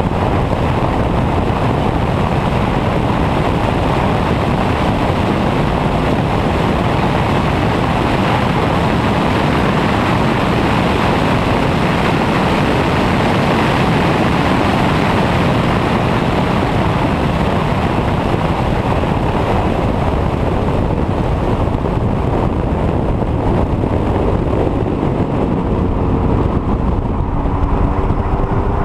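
Heavy wind rush on the microphone over the road and engine noise of a 2015 VW GTI, its turbocharged 2.0-litre four-cylinder engine, driven hard on a race track. Near the end the engine note rises as the car accelerates.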